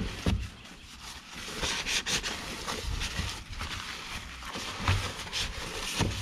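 Cloth rubbing and wiping over a car's surface by hand, in a run of short, irregular strokes.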